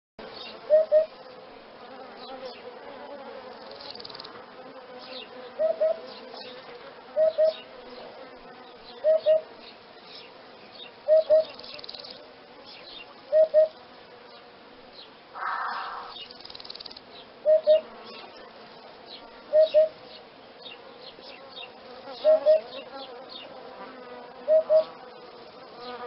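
Hoopoe calling its soft, low two-note "oop-oop", repeated ten times at about two-second intervals, over a steady background buzz of insects. A brief noisy rush comes in about halfway through.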